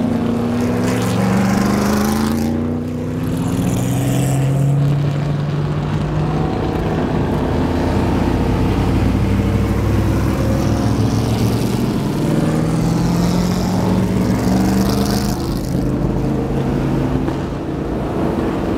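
A procession of vintage race cars and road vehicles driving past one after another at low speed. Their engines run and rev, pitch rising and falling as each car pulls away and the next arrives.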